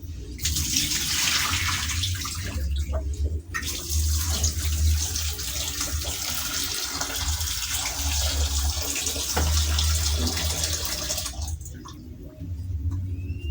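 Kitchen tap running into a sink: a steady rush of water that breaks off briefly about three seconds in and is turned off near the end.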